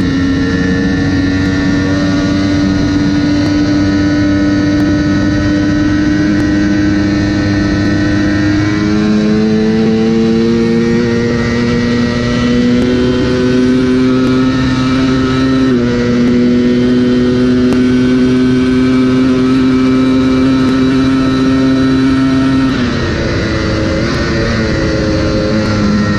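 Sport motorcycle engine running hard at high motorway speed, its steady note climbing slowly in pitch as the bike accelerates through the middle, then dropping about three-quarters of the way through, with wind rushing past the rider.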